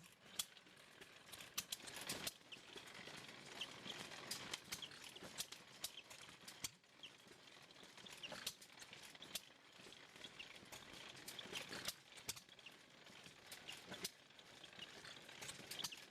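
Faint, irregular mechanical clicking and clatter from an antique hit-and-miss engine driving an old drill press.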